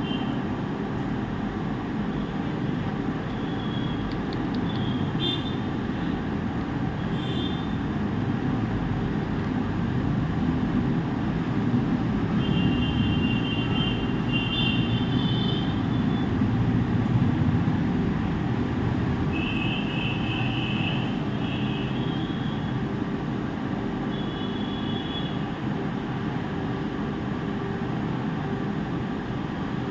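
Steady low mechanical rumble of background noise, with a few short, high-pitched chirps or beeps scattered through the middle.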